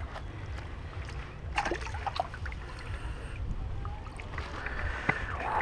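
Wind rumbling on an action camera's microphone, with scattered small clicks and knocks from handling and movement.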